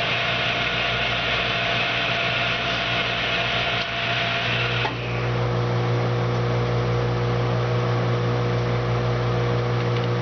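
Hardinge HLV-H toolroom lathe running under power on a final threading pass, a steady whir of spindle and drive. A little under five seconds in, the higher whir drops away as the spindle stops, leaving a steady low electric hum.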